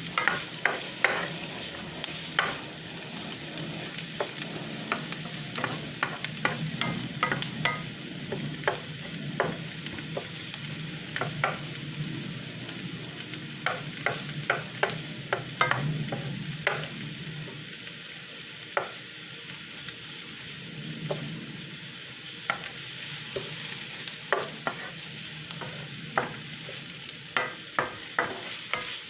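Food sizzling as it fries in a pan while a utensil stirs it. The utensil makes sharp, irregular clicks and scrapes against the pan over a steady hiss.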